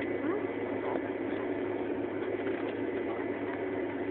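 Steady cabin noise inside an Airbus A320 taxiing after landing: the engines at idle and the cabin air make an even rumble with a low hum and a faint steady whine.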